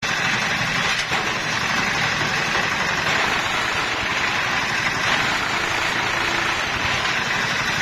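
Engine-driven brick-moulding machine running steadily, the engine's rapid firing pulse under a dense mechanical clatter.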